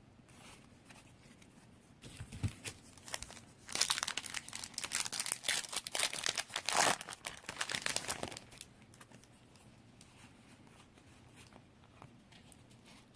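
Foil wrapper of a Yu-Gi-Oh booster pack crinkling and tearing open. A run of crackling starts about two seconds in, is loudest in the middle and stops about two-thirds of the way through.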